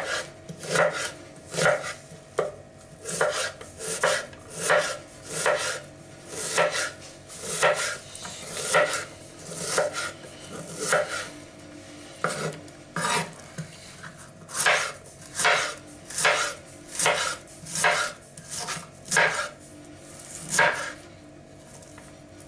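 Kitchen knife chopping an onion on a wooden cutting board: a steady run of sharp knocks, about two a second, as the blade strikes the board through the onion.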